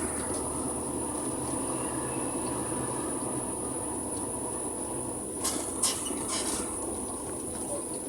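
Steady rumble of a vehicle driving along a road, with a constant high thin whine. A few sharp clicks or rattles come about five and a half and six seconds in.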